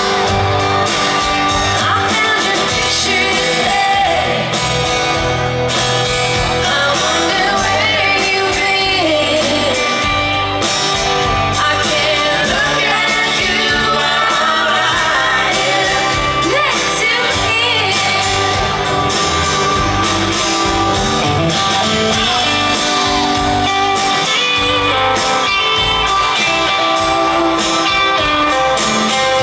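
Live concert music: a man and a woman singing together over a strummed acoustic guitar.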